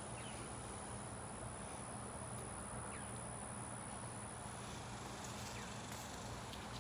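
Steady outdoor ambience: a continuous high-pitched insect drone, with a few faint short chirps every few seconds.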